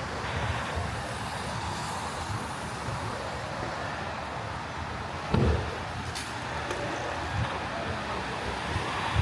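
City street ambience: road traffic running past, with gusts of wind buffeting the microphone and a short low thump about five seconds in.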